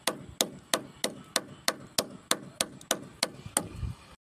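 Rapid, regular blows of a long-handled tool smashing a cracked mobile phone against a concrete slab, about three strikes a second with a short bright ring on each. Near the end there is one dull low thump, then the sound cuts off abruptly.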